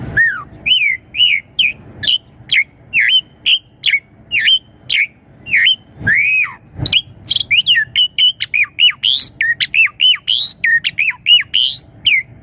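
Asian pied starling (jalak suren) singing a rapid, varied song of short whistled and harsh notes, many sliding up or down, with a longer drawn-out slurred whistle about six seconds in.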